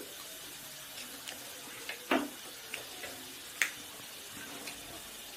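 Close-up eating sounds: a handful of short, wet clicks and smacks from chewing and mouth noises, the loudest about two seconds in and a sharp click a little later.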